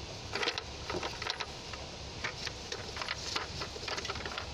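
Plastic intake manifold being worked loose and lifted off a Mercedes C200 engine: irregular light clicks and knocks of plastic against the engine's parts, over a steady low hum.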